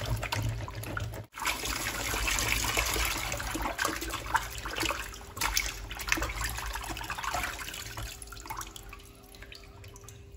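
Water sloshing and splashing in a plastic basin as hands scrub raw pork in it, dying down to drips near the end as the meat is lifted out.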